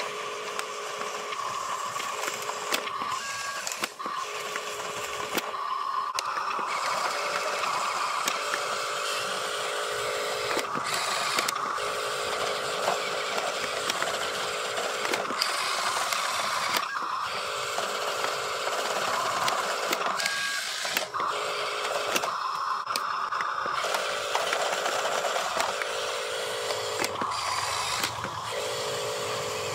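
Radio-controlled dump truck's small electric drive motor and gearbox whining as it drives. The whine starts and stops every few seconds as the throttle is worked.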